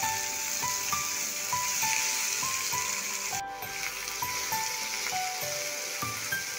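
Food sizzling as it fries in hot oil in a pan, a steady hiss that breaks off for a moment about halfway through, under light background music playing a melody of single notes.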